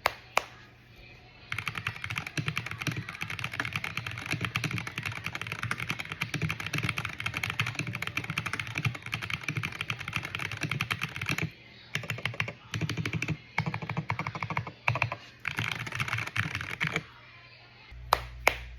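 Typing on a Hall Effect mechanical keyboard. A fast, continuous run of keystrokes lasts about ten seconds, followed by shorter bursts of typing with brief pauses, and a few single key presses near the end.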